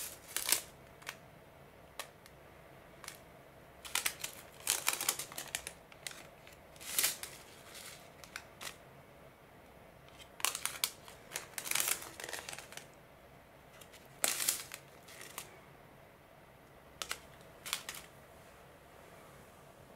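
Small plastic furikake sachets crinkling and rustling as they are handled, in short bursts with quiet gaps between, dying away near the end.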